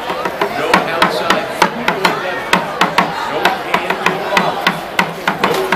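A dance track's steady beat, with sharp hits about three times a second over a low thud, and crowd voices behind it.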